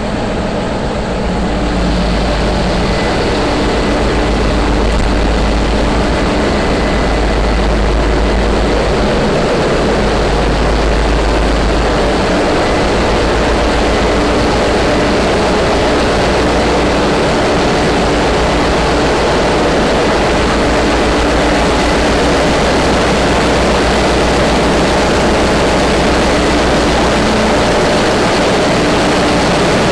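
Heavy machinery running steadily: a loud, continuous mechanical noise with a deep rumble and a few steady tones.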